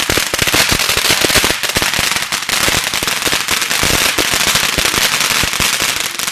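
Consumer fireworks going off in a rapid, dense string of sharp cracks and pops that keeps up without a break.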